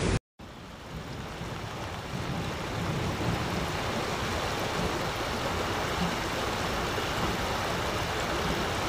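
Flash-flood water rushing in a steady, noisy torrent, swelling over the first couple of seconds and then holding level.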